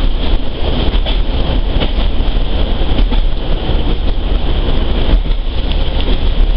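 British Rail Class 153 diesel railcar heard from inside its passenger saloon while running on the line: a steady, loud drone of the underfloor diesel engine and the wheels on the track, heaviest in the deep bass.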